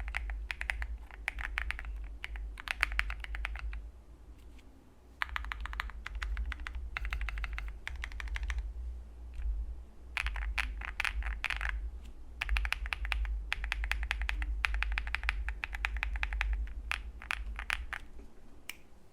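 Typing on a Wind X98 mechanical keyboard with lubed Tecsee Blue Sky switches, some case foam and PBT keycaps: runs of rapid keystroke clacks broken by short pauses, with one longer pause about four seconds in. A faint low hum sits underneath.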